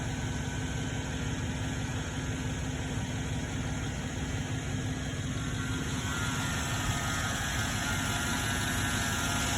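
2007 Chevrolet Tahoe's V8 idling steadily after a throttle body cleaning and a new air filter, the idle the owner hears as much improved over the rough idle he set out to fix. A faint higher whine comes in about six seconds in as the sound grows a little louder.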